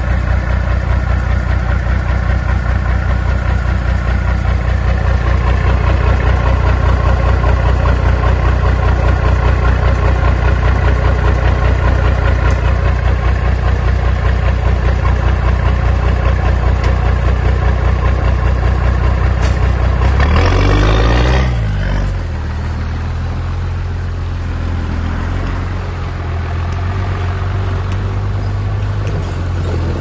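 Bulldozer's diesel engine running hard and steady. About twenty seconds in, its pitch drops with a brief hiss, and it settles into a lower, slightly quieter run.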